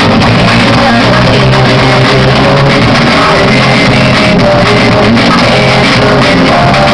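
Loud recorded song playing as dance music, with guitar.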